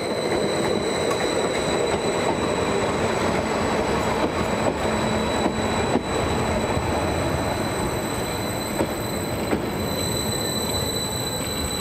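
Greater Anglia Stadler FLIRT multiple unit running past a station platform: the steady rumble and rush of the train's wheels on the rails.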